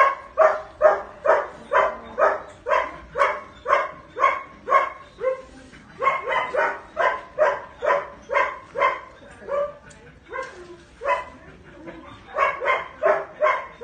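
Belgian Malinois barking repeatedly, about two barks a second, with a brief lull about ten seconds in before the barking picks up again.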